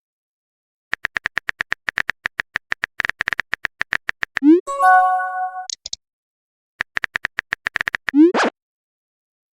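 Chat-app sound effects: rapid phone-keyboard typing clicks, then a short rising whoosh of a message being sent and a chiming notification chord of a few steady tones. After a pause, more typing clicks and a second send whoosh near the end.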